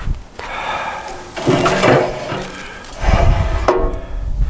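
Metal cooking rack of a steel cabinet smoker scraping and clanking as it is handled and slid on its rails, in two bursts about a second and a half apart.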